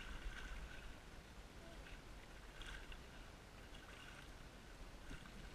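Faint splashing and sloshing of water at the edge of the rocks as a hooked sevengill shark thrashes while it is grabbed by hand, with a few soft taps.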